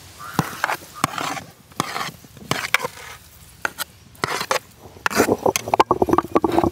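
Chopped dragon fruit being scooped out of a large basin with a small metal scoop and tipped into a stone wet grinder: irregular scrapes and sharp knocks.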